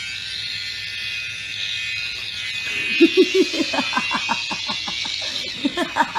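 A harsh high-pitched noise blares suddenly from a smartphone's speaker held at a sleeping person's ear. About three seconds in, laughter in quick bursts joins it.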